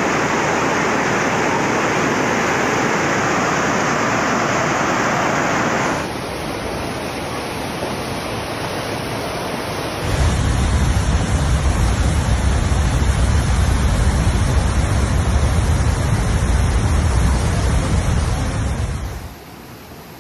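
Rushing floodwater: a loud, steady rushing noise in three abrupt cuts. The first is a bright hiss, the second is quieter, and from about ten seconds in a heavy low rumble runs under it. The noise drops away near the end.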